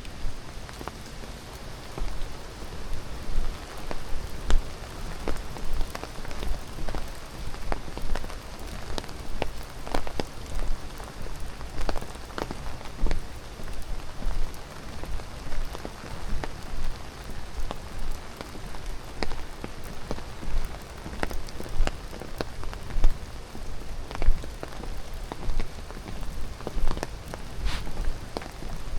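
Footsteps on a forest trail, about one a second, over a steady rush of water, with many small sharp ticks and crackles.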